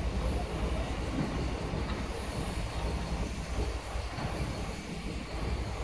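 Wooden passenger coach rolling along the track behind a small shunting locomotive: a steady low rumble of the locomotive's engine and the wheels on the rails.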